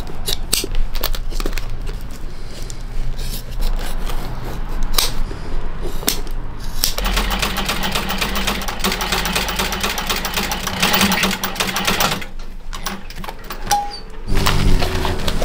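Scissors snipping leather in scattered clicks, then, about seven seconds in, an industrial sewing machine stitching leather in a fast, even run of about five seconds before it stops.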